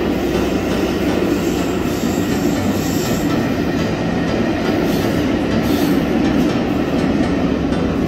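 Train of Pullman carriages rolling past at speed: a steady rumble of steel wheels on the rails.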